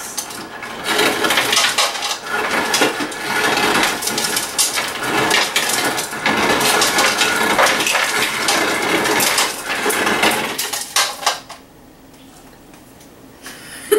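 Ice cubes clattering out of a refrigerator door dispenser into a glass, a dense rattle of many small knocks for about ten seconds that stops near the end.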